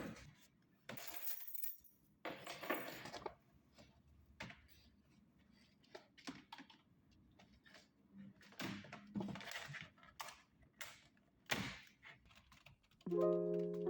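Short, irregular rustles and clinks of small objects being handled, a dozen or so brief noises with gaps between them. Light piano music comes in near the end.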